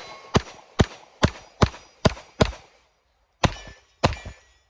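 A string of pistol shots fired at about two or three a second, with a pause of about a second past the middle before a few more, the half-inch steel A-zone targets ringing after the hits.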